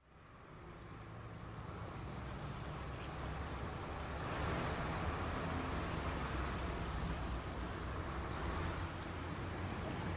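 Outdoor ambience fading in from silence over the first few seconds, then holding steady: a low rumble under an even hiss.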